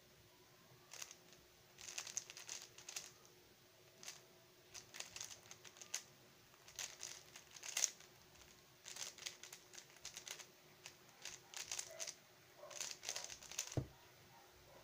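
Stickerless 3x3 speedcube being turned fast during a timed solve: bursts of rapid plastic clicking and clacking, with short pauses between them. Near the end, a low knock as the cube is put down on the desk.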